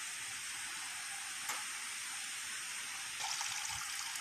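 Steady rush of flowing river water, with splashing and dripping from about three seconds in as a wet cast net is lifted out of the water.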